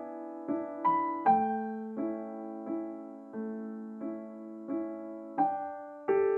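Background piano music: a slow, gentle melody of single notes and chords, each struck and then dying away.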